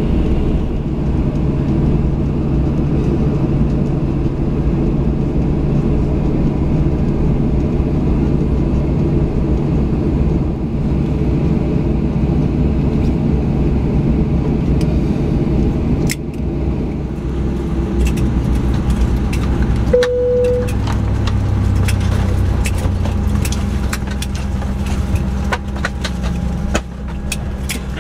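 Cabin noise of a Boeing 737-800 taxiing after landing: a steady low rumble from its CFM56 engines at taxi power. In the second half, scattered sharp clicks and jingles are heard in the cabin, and a single short chime tone sounds about two-thirds of the way through.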